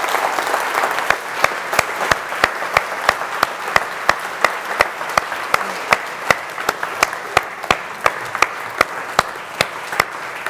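Large indoor audience applauding, with one pair of hands clapping close by in a steady beat of about three claps a second over the crowd's clapping. The applause thins toward the end.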